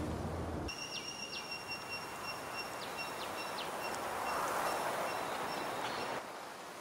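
Steady outdoor ambient noise that changes abruptly twice. A low hum gives way, under a second in, to a hiss with a thin, high steady whine, and a rushing swell of noise comes about four to five seconds in.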